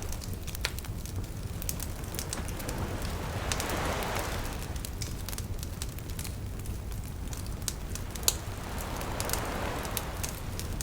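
Campfire burning, with frequent sharp crackles and pops of burning wood over a low steady rumble, and a soft rushing of flames swelling twice, around four and nine seconds in.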